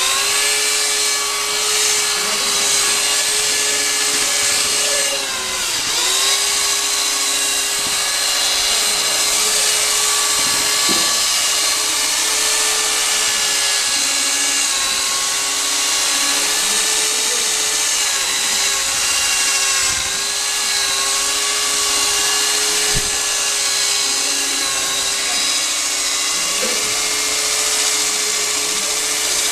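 Electric drill fitted with a paddle mixer, running steadily as it churns a bucket of wet plaster mix. Its motor whine dips briefly in pitch twice, about six and twenty seconds in.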